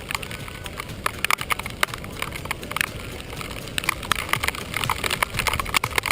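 Rain: many irregular sharp raindrop taps, close to the microphone, over a steady hiss of rainfall.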